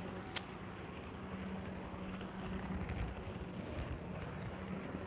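N-scale model train running, heard from a micro-camera riding on it: a steady motor hum with rumble and hiss, and one sharp click about half a second in.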